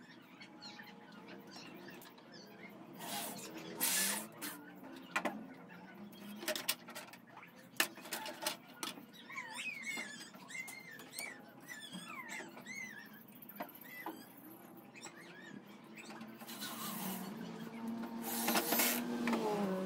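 Wooden slats of a small frame knocked and handled on a wooden workbench, with small birds chirping through the middle. Near the end a cordless drill runs in two short bursts, driving screws into the wooden frame.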